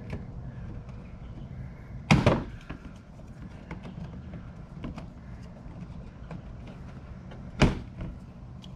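Plastic trim tools prying at stuck push clips in a car's plastic inner fender liner: small scraping clicks, with two loud plastic clacks, one about two seconds in and one near the end. The clips are stuck fast and won't pop out.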